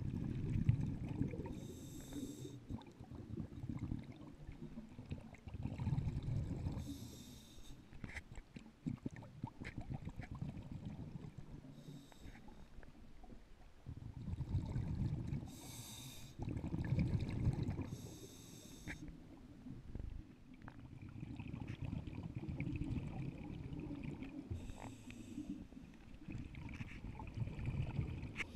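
Scuba diver breathing through a regulator underwater: short hissing inhalations, each followed by a longer low bubbling of exhaled air, about six breaths in all.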